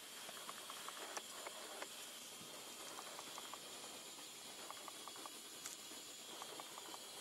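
Steady faint hiss with scattered light clicks and ticks as a small wakasagi ice-fishing rod and its line are handled over the hole.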